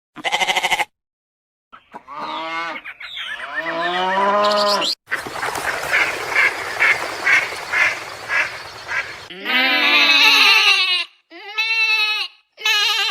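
A run of farm animal calls cut one after another. First comes a short pulsed call, then drawn-out bleating calls. Next is a noisy stretch pulsing about three times a second, and more bleating calls follow near the end.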